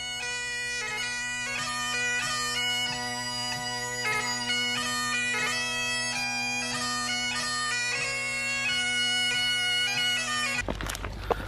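Bagpipe music: a steady drone under a moving chanter melody, cutting off suddenly near the end.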